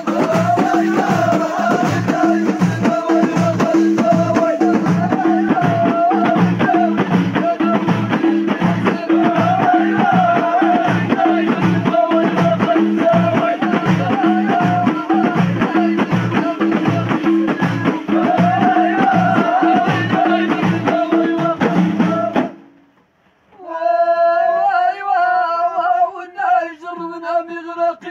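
Amazigh ahidous: a line of men beating bendir frame drums in a steady beat while singing together over it. About 22 seconds in, the drums and song stop abruptly. After a second's pause the men start a chanted sung line in unison, without drums.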